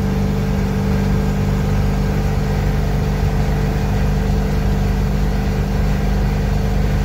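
7.3 IDI V8 diesel of an International wrecker running steadily at about 60 mph in the high range of the two-speed rear axle while towing a pickup, heard from inside the cab as a steady low drone with road noise.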